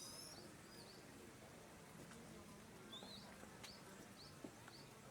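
Faint high chirps from a small bird, short quick notes that glide in pitch, coming about twice a second in the second half, over a low background hum.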